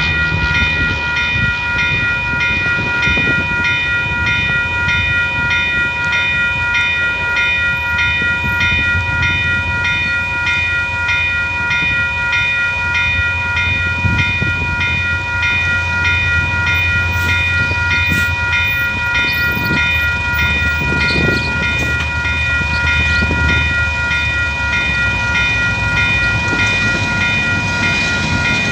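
Railway level crossing warning bell ringing at an even repeating pace, with its flashing lights active, signalling an approaching train. A low engine rumble runs underneath.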